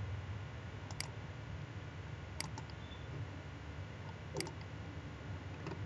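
Three separate computer mouse clicks, a second or two apart, over a steady low hum.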